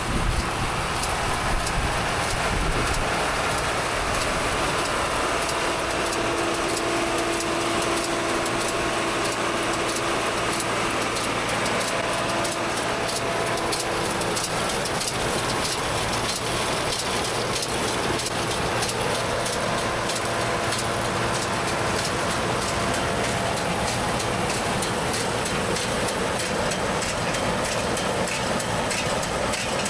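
Tractor engine and round baler running steadily in an alfalfa field, an even mechanical noise with a faint steady hum that comes and goes.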